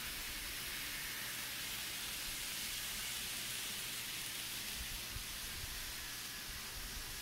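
Model trains running on their track, heard as a steady hiss with a few soft low bumps about five and seven seconds in.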